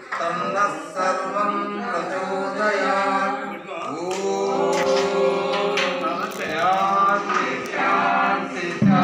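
A group of voices, men's among them, singing a devotional chant together in slow, drawn-out notes. At the very end, louder music cuts in abruptly.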